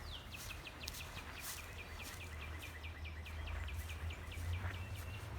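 A bird singing a long trill of quick, repeated downslurred chirps, about five a second, stopping near the end. A steady low rumble runs underneath.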